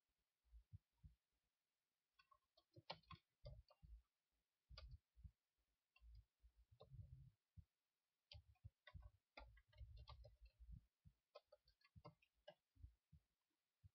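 Faint computer keyboard typing: irregular key clicks in quick runs broken by short pauses.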